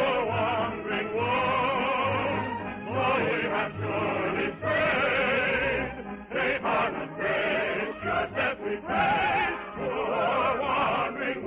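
A choir singing operatic music with strong vibrato, in phrases separated by short breaths.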